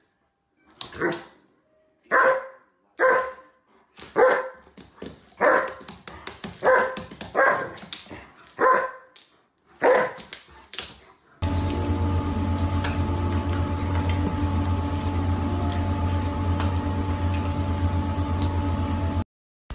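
A dog barking: about a dozen single barks at uneven gaps. They are followed by a steady humming noise with a deep drone that lasts about eight seconds and cuts off suddenly.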